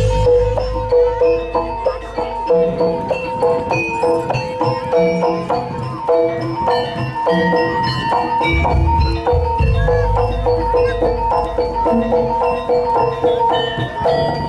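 Jaranan gamelan music: tuned bronze metallophones and gong-chimes play a quick repeating pattern of struck notes, with deep low drum and gong strokes near the start and again about two-thirds of the way through.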